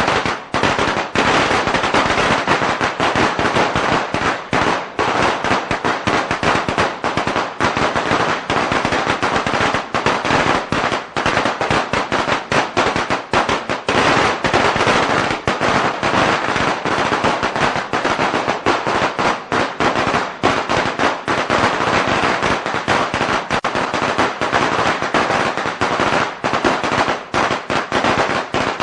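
String of firecrackers going off in a dense, unbroken rapid crackle of sharp bangs, with no pause for nearly half a minute.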